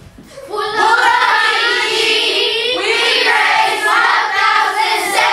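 A class of children singing together in unison, loud and steady, beginning about half a second in as background music fades out.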